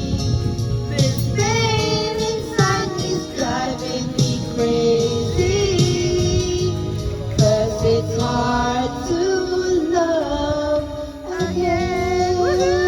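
Music: a slow pop love ballad playing, with a singing voice carrying the melody over a steady accompaniment.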